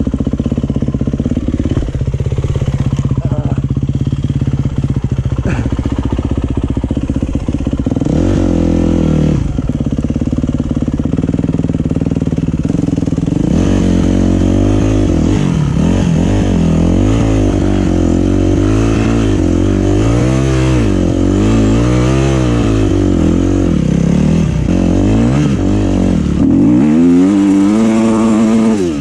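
Yamaha YZ250F single-cylinder four-stroke dirt bike engine heard from the rider's seat, running at a steady speed for the first several seconds, then revved up and down over and over, about once a second, through the second half, loudest near the end.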